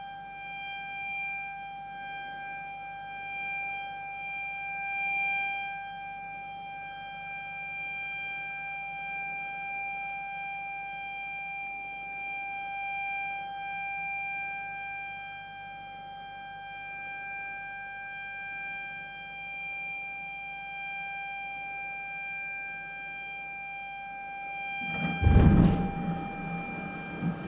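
A warning siren sounds one steady, unchanging note. About 25 seconds in, a rock blast goes off: a sudden deep boom with a rumbling tail, the loudest sound here, while the siren keeps sounding.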